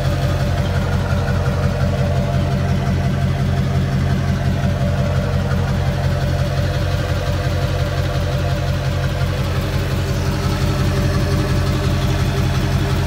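Chevrolet Silverado 2500's Duramax LB7 turbo-diesel V8 idling steadily, a constant low engine hum.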